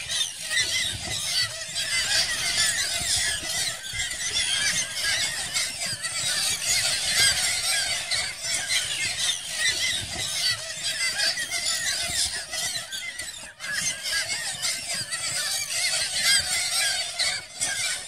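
A large flock of Arctic terns calling in a feeding frenzy: a dense, continuous chatter of many overlapping high-pitched calls, with a low rumble underneath.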